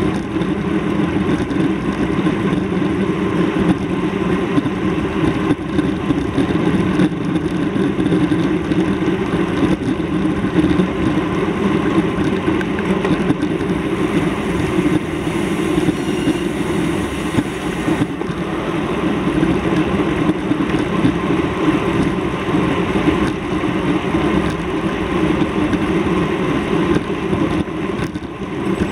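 Steady vehicle noise, loud and unchanging, with its weight in the low-middle range.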